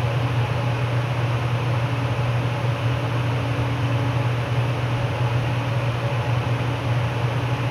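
Steady low hum with a hiss over it: constant background noise from the recording setup, with no other event.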